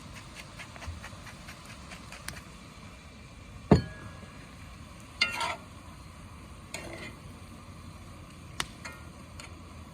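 Ground bison browning in oil, sizzling steadily in the pot as it is stirred, with a few sharp clinks of the utensil against the pot; the loudest knock comes just over a third of the way in and a ringing metallic clink about halfway.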